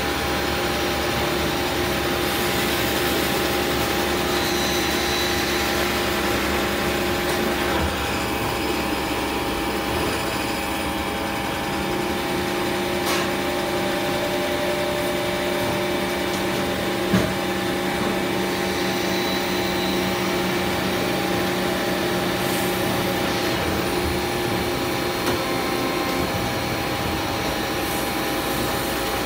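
CNC metal-spinning machine running, the spindle turning a steel workpiece on the mandrel: a steady mechanical hum with several held tones over a whirring noise. One sharp click stands out about seventeen seconds in.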